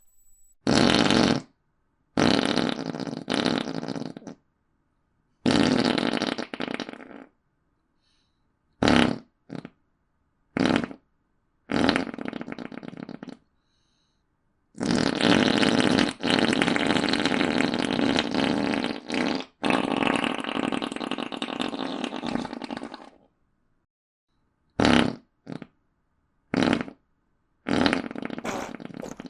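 A run of about a dozen fart sound effects from the iFart app, played one after another with dead silence between them. Most last a second or two and a few are quick blips. One long, drawn-out fart of about eight seconds comes in the middle.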